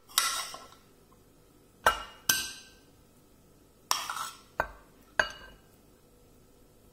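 Metal spoon clinking and scraping against a pressure cooker pot as cooked dalia is scooped out, about six sharp clinks spread unevenly over a few seconds.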